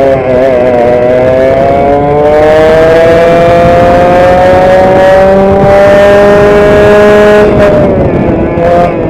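Vintage racing kart's two-stroke engine heard close up from onboard, revs climbing steadily under full throttle for several seconds, then falling sharply near the end as the throttle is lifted.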